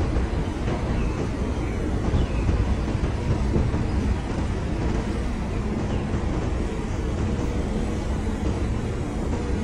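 Grove TM1500 truck crane's diesel engine running steadily: a continuous low drone with a faint steady hum over it.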